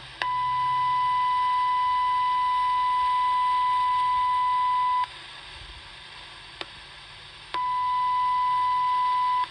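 Steady high-pitched test tone from the Channel Master 6514 transistor radio's speaker, the modulation of a 455 kHz signal injected at the second IF amplifier's base: signal is passing from that stage through to the speaker. The tone cuts off after about five seconds to a background hiss with one click, then comes back near the end.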